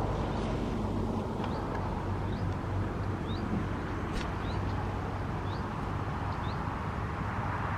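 A steady low engine drone with a hum, over which a small bird gives short rising chirps about once a second.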